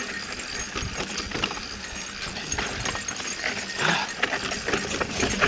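Yeti SB4.5 mountain bike rolling fast down rough dirt singletrack: tyres crunching over the ground with a busy, uneven clatter of small clicks and rattles from the bike, over a low rumble of wind on the microphone.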